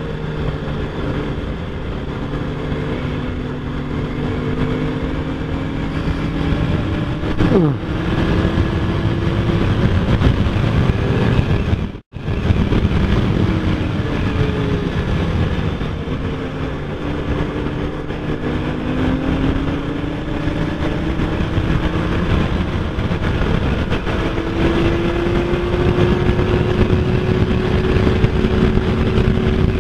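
2003 Honda CBR F4i's 600cc inline-four engine running at road speed under heavy wind and road rumble, its pitch rising and falling with the throttle. The sound cuts out for a split second about twelve seconds in.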